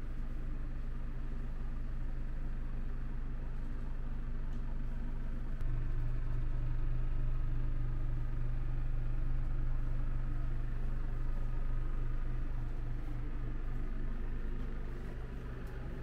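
Steady low mechanical hum that gets louder about five and a half seconds in and eases off near the end.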